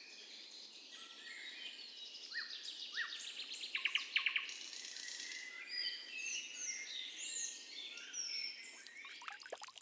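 Several songbirds singing and calling together, a dense chorus of chirps, whistled glides and rapid trills, the loudest trills about four seconds in.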